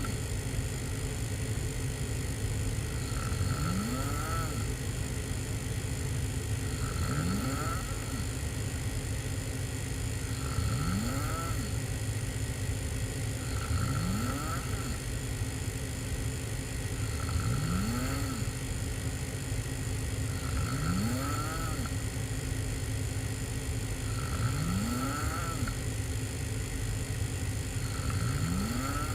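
A person snoring hard with the mouth open while sleeping on their back: about eight snores, one every three and a half seconds, each rising in pitch. A steady low rumble runs underneath.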